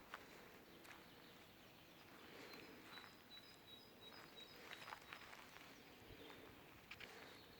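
Faint forest ambience: a small bird calling a quick run of short, high notes for about two seconds in the middle, over scattered soft footstep crunches.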